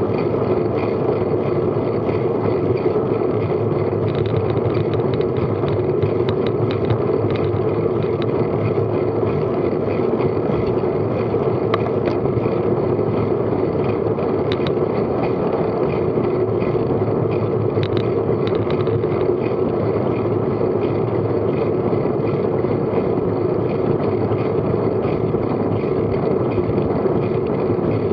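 Steady rushing of wind on an action camera's microphone, mixed with tyre and road noise, as a bicycle rides along a tarmac road at about 15 mph. A few faint ticks come and go partway through.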